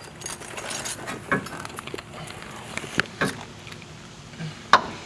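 Hand tools clinking and knocking against metal car parts while the rear suspension is worked apart: a handful of separate clanks and clicks, the sharpest near the end.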